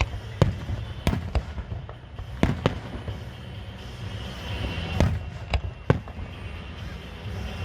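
Fireworks going off: sharp, irregularly spaced bangs of bursting shells, about nine in all, over a low rumble of echoing reports.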